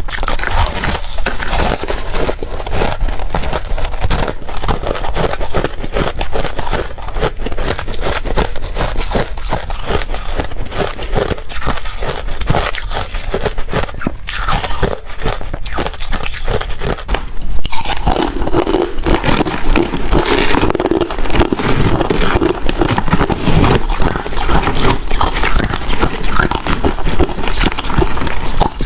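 Close-miked crunching and chewing of ice, a dense unbroken run of sharp cracks and crackles, fuller and heavier from a little past the middle.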